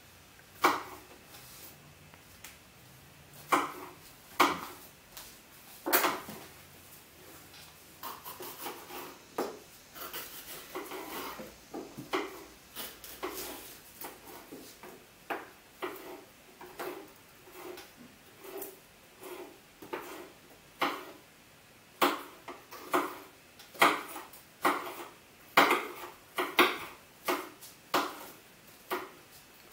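Kitchen knives chopping bell peppers, the blades knocking against the wooden cutting surface in separate sharp knocks, with some rustling of handled pepper pieces. The knocks are irregular at first and settle into a steady chop about once a second in the second half.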